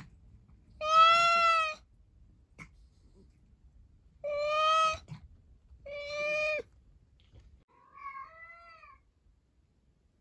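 A domestic cat meowing: three loud, long, drawn-out meows a few seconds apart, then a fainter, higher-pitched meow that bends up and down near the end.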